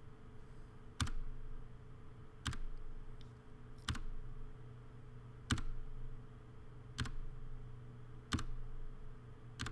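Single clicks of a computer keyboard key, evenly spaced about every second and a half, over a steady low hum.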